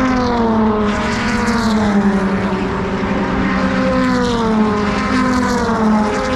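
NASCAR México race cars' engines running at speed as cars pass close by one after another on the straight. Each pass drops in pitch as the car goes by, once near the start and again about two-thirds in, over a steady drone from other engines on the track.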